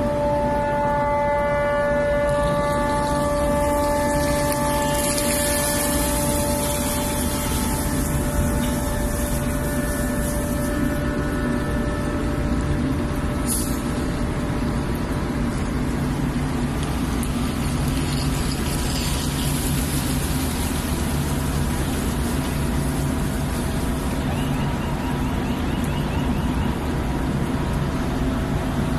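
Steady drone of engines with a constant noise, and a long horn tone held from the start that fades out some eight to twelve seconds in.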